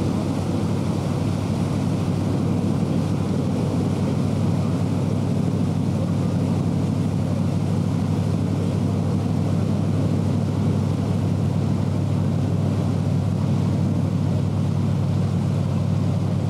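Boat engine running steadily under way, a constant low drone with wind and water noise over it.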